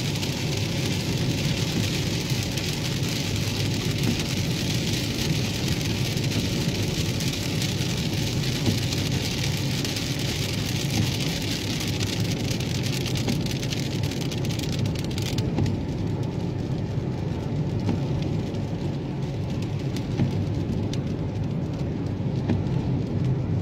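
Car cabin noise while driving on a wet highway: a steady low road rumble with the hiss of tyres on wet pavement and rain on the car. The highest part of the hiss drops away about two-thirds of the way through.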